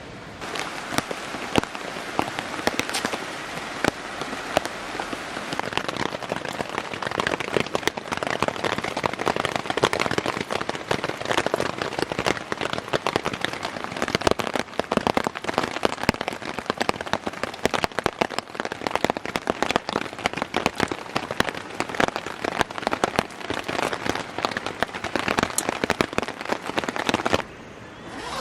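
Wood fire in a small camp fire pit crackling, with dense sharp pops and snaps; it cuts off abruptly near the end.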